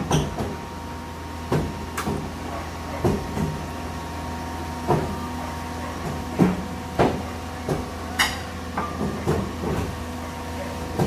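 Cat 320 Next Gen excavator running at a steady diesel hum as it crawls on its steel tracks across a lowbed trailer, with irregular metallic clanks about once a second as the track shoes strike the steel ramp and deck.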